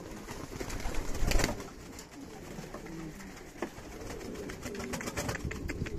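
Pouter pigeons cooing in low tones, with a louder burst of noise about a second and a half in and light clicking near the end.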